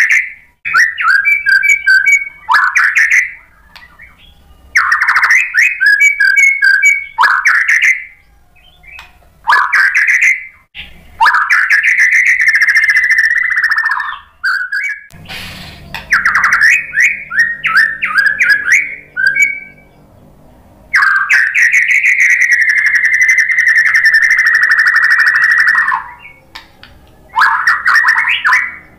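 Male white-rumped shama singing loudly in phrases of rapid, repeated chirps and whistles, separated by short pauses. It runs through varied song material and holds two long, even trills: a shorter one about twelve seconds in and one of about five seconds past the twenty-second mark.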